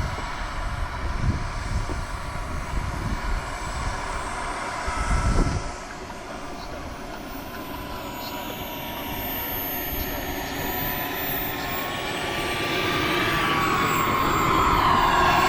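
Turbine engine of a radio-controlled model jet whining, its pitch wavering slowly and growing louder over the last few seconds. Wind buffets the microphone in the first half.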